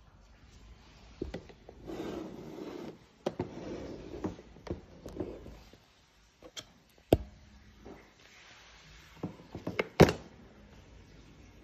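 Clear plastic reptile carrier box being handled: plastic rubbing and scraping, then several sharp clicks and snaps from the clamshell lid, the loudest about ten seconds in.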